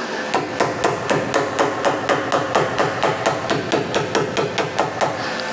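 Hammer rapidly tapping on a car's sheet-metal rocker panel cover from below, about five or six even blows a second, knocking the panel flush against the sill for tack welding.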